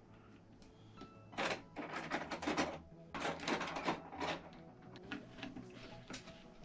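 Computer parts and their packaging being handled, with a quick run of clicks and rustles from about one and a half to four and a half seconds in, over faint background music.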